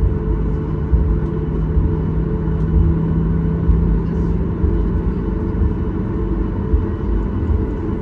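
Steady engine rumble and drone inside the cabin of a Boeing 737 MAX 8, with its CFM LEAP-1B turbofans running. A low hum in the mix drops out about six seconds in.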